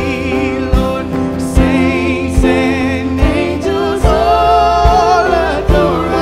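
A song with a singing voice held on long notes with wide vibrato, over a band with sustained chords and a steady drum beat about every 0.8 seconds.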